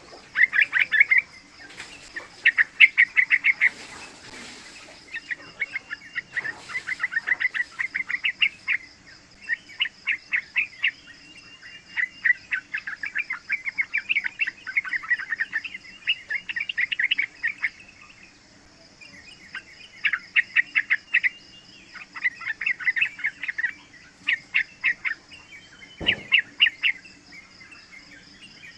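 Young sooty-headed bulbul singing in quick chattering phrases of rapid notes, each about a second long, repeated with short pauses. A steady high whine runs underneath, and there is a single brief knock near the end.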